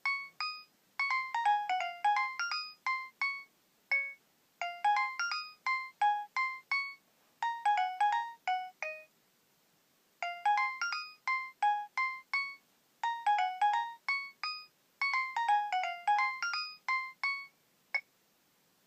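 A Nokia 7250i mobile phone playing an added (not preloaded) ringtone through its loudspeaker. It is a melody of quick, short notes in repeating phrases, and it stops shortly before the end.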